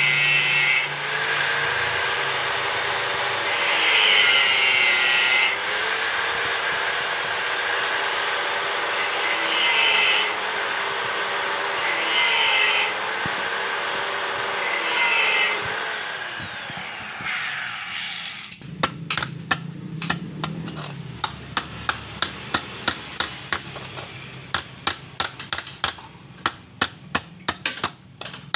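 Electric angle grinder whining steadily and grinding into a steel pipe, turning harsh and louder each time the disc bites, then spinning down about 17 seconds in. After that comes a run of sharp hammer taps on steel on an anvil, a few a second and getting quicker.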